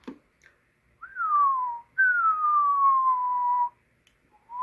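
A man whistling into a CB radio microphone as a test tone for the modulation meter. There are three whistles: a short one that rises and then falls, a longer one that slowly falls in pitch, and one rising near the end.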